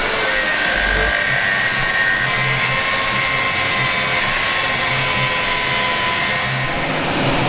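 A handheld power tool running steadily with a faint high whine, as it works on the drill's row-unit hardware during teardown.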